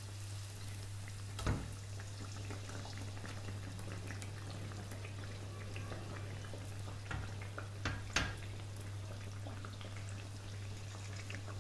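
Oil sizzling and bubbling around two chicken kachoris deep-frying in a kadai, as their crusts turn crisp. A wooden spatula knocks against the pan a few times: about a second and a half in, and twice around seven to eight seconds in.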